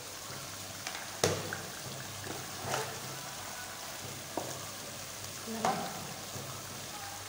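Onion-tomato masala sizzling in oil in an aluminium pot, stirred with a wooden spoon that scrapes and knocks against the pot a few times.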